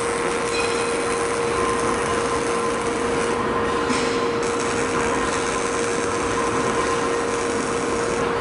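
Motoman K10S welding robot cell running in test mode: a steady mid-pitched whine over an even hiss.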